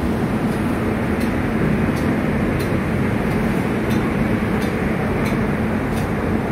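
Indian Railways locomotive running at close range: a loud, steady machinery drone with faint high ticks about every two-thirds of a second.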